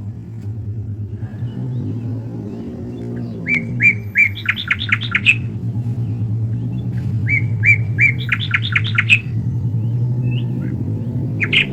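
A songbird singing twice, each phrase a few notes that speed up into a quick run of repeated notes, with a third phrase beginning near the end. A steady low rumble runs underneath.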